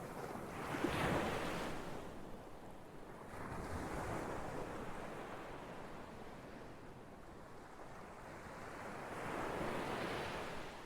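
Ocean waves breaking and washing in, swelling and falling back three times: about a second in, around four seconds in, and again near the end.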